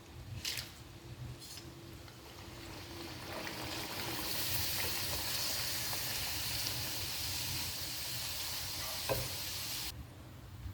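Potato chips frying in hot oil: a steady, hissing sizzle that builds a few seconds in and cuts off abruptly near the end, with a few light clicks.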